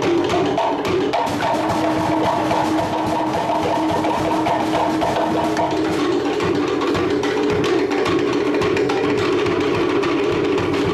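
An ensemble of Cook Islands wooden slit log drums (pate) beaten with sticks in a fast, steady rhythm of dense wooden knocks. A higher-pitched drum part drops out about six seconds in, leaving the lower drums going.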